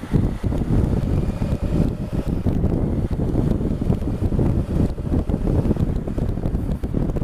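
Wind buffeting the microphone of a helmet-mounted action camera on a moving motorcycle: a dense, fluttering low rumble with the Honda Africa Twin CRF1000L's engine running beneath it.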